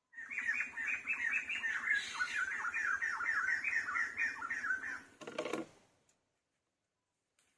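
A rapid run of high chirping animal calls, about five a second, each dipping in pitch, lasting about five seconds. It ends in a short burst of noise, then near silence.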